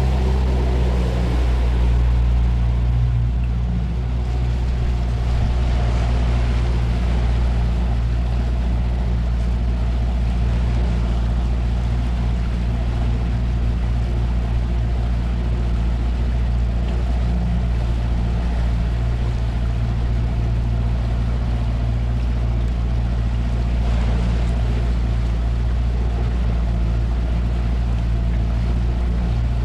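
Outboard motor of a 16-foot jon boat running steadily at an even pitch while under way, over a rushing hiss of water along the hull.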